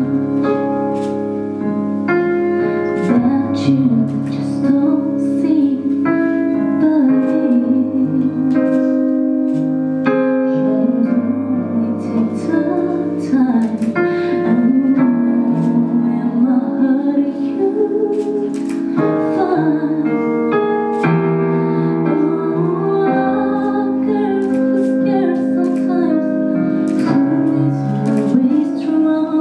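A woman singing a slow song while accompanying herself on a Korg keyboard set to a piano sound, with held chords under the sung melody.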